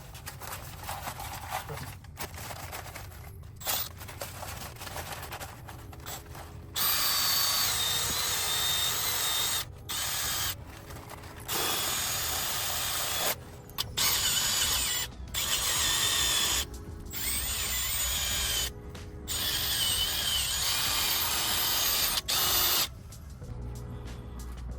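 A few quiet clicks and knocks of hand tools at first. Then a handheld power tool runs in repeated bursts of one to three seconds, each with a wavering high whine.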